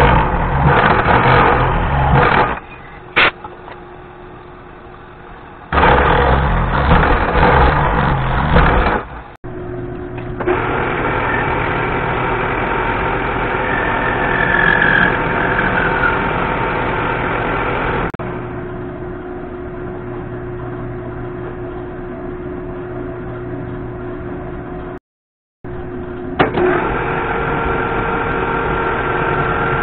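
End mill on a milling machine cutting a step into a metal block held in a vise, in two loud passes over the first nine seconds. Then a metal lathe running steadily, turning a metric bolt down into an eccentric cam for a bandsaw guide bearing.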